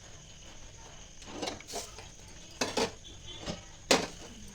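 Kitchen utensils knocking and clinking: a few irregular sharp knocks, the loudest about four seconds in.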